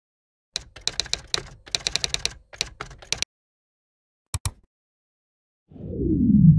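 Computer keyboard typing: a quick run of key clicks, then a double mouse click. Near the end a low whoosh swells up, falling in pitch.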